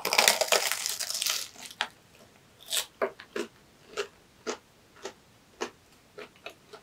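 Biting into a chocolate-filled pastry pie with a crunchy crust, then chewing it. A burst of dense crunching comes in the first second and a half, then single crunches come about twice a second.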